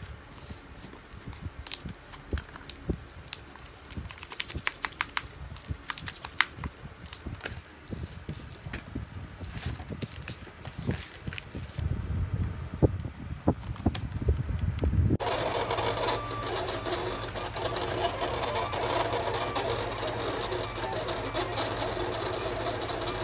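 Crinkling and clicking of a plastic holographic laminate sheet and sticker paper being handled. About two-thirds of the way through, this gives way abruptly to an electronic craft cutting machine whirring steadily as its blade carriage cuts a laminated sticker sheet.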